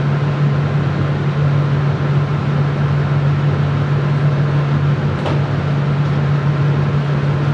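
Biological safety cabinet's blower running, a steady low hum with a rush of airflow. A single faint click about five seconds in.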